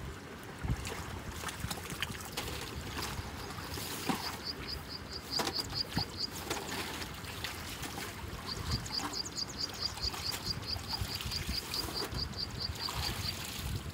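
Muddy water flowing and sloshing around boots wading in a concrete drain channel, with knocks and rustles of debris being handled. A bird calls in rapid runs of high chirps, about five a second, briefly about four seconds in and again from about eight seconds to near the end.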